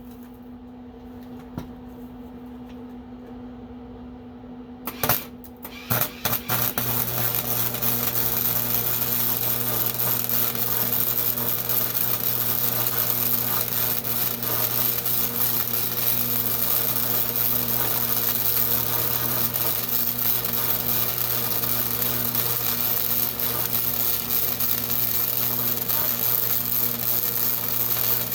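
A welding arc crackling steadily on steel, starting about six seconds in after a few short clicks, over a low electrical hum.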